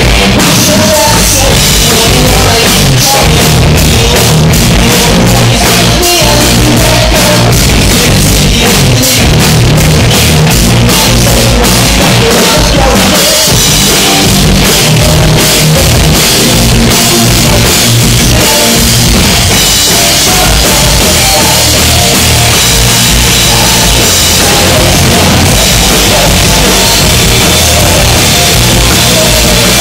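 Live rock band playing loud: electric guitar, bass guitar and a drum kit, with a run of quick, evenly spaced drum and cymbal hits in the first half.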